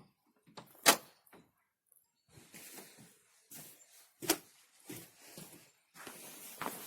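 Two sharp knocks, about three and a half seconds apart, with bouts of soft rustling between and after them.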